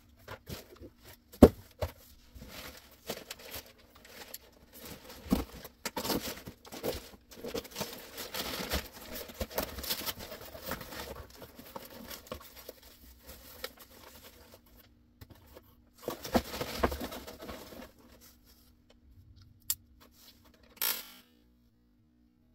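Unboxing: a cardboard box being handled and packing material pulled out, with crinkling plastic wrap and rustling, tearing paper among sharp knocks of cardboard. The loudest is a single knock about a second and a half in.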